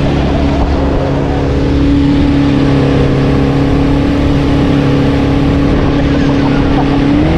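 Johnson 115 outboard motor running steadily with the speedboat under way, a constant engine note over the rush of water; the pitch rises slightly near the end.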